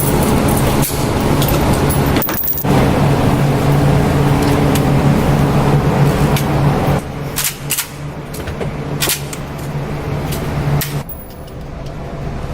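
Steady low mechanical hum, with several sharp cracks partway through. The sound cuts out abruptly a few times.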